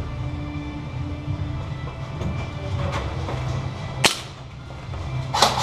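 Airsoft gun firing: a sharp single crack about four seconds in and two more in quick succession near the end, over a steady low rumble.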